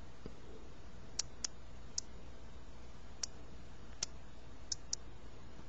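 Key clicks from an iPod touch's on-screen keyboard as an amount is typed in: about seven short, sharp, high-pitched clicks at uneven intervals, two of them close together just after a second in and two more near the end.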